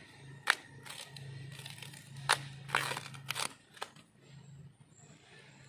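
Kitchen knife cutting and scraping the husk off fresh bamboo shoots: a handful of sharp crunching cuts at irregular intervals, the loudest about half a second in and just after two seconds.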